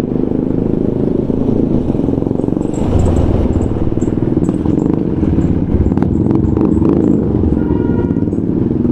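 Motorcycle engine running steadily while riding, heard from the bike itself with a constant low drone.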